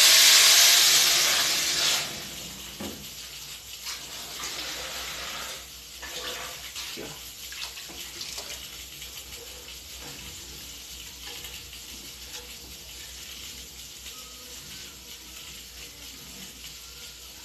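Water poured into a hot pot of fried rice, sizzling loudly for about the first two seconds, then a softer steady pour and simmer with a few light knocks of a wooden spoon stirring.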